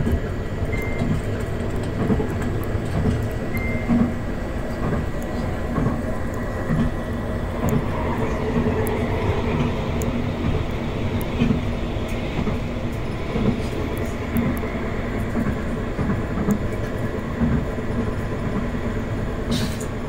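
Edinburgh CAF Urbos 3 tram running along ballasted track, heard from inside the driver's cab: a steady rumble of wheels on rail with faint scattered clicks.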